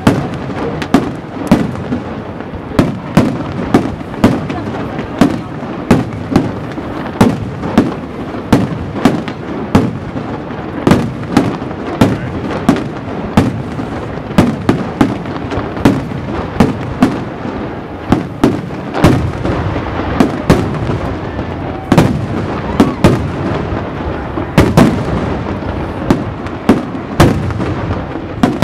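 Professional aerial fireworks display: a continuous barrage of shell bursts, about one to two sharp bangs a second over a steady rumble.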